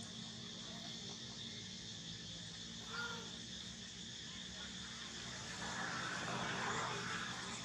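Steady outdoor insect drone, with a short chirping call about three seconds in and a soft rustling stretch near the end.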